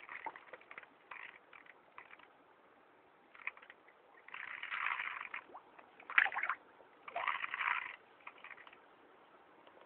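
Koi carp slurping and splashing as they gulp food at the water surface, in irregular bursts; the loudest is a sharp splash about six seconds in.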